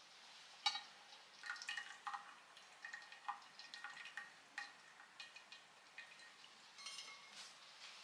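Faint clinks and taps of kitchenware: about a dozen short, lightly ringing knocks, the sharpest about a second in, as a metal mesh strainer is lifted off a glass dish and set aside.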